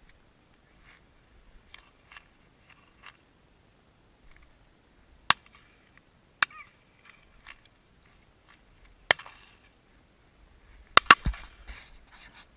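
Shotgun shots: single shots about five, six and a half and nine seconds in, then a quick double shot about eleven seconds in, the loudest of them.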